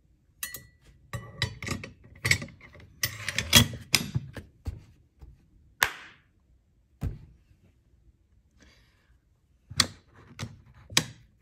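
Steel rifle parts of a Galil bolt and receiver clicking, clacking and knocking as they are handled and set on a wooden bench while a headspace gauge is fitted, with a clatter of small clicks and two sharp knocks in the middle.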